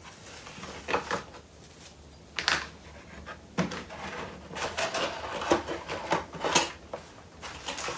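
Cardboard box inserts and a foam sheet being handled and lifted out of a motherboard box: a string of short rustles, scrapes and taps, busier in the second half.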